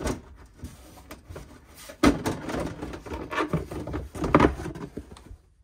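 Plastic inner fender liner being flexed and pulled out of a pickup's front wheel well. There is a sharp snap about two seconds in, then plastic scraping and rubbing against the wheel well, with a couple of louder knocks.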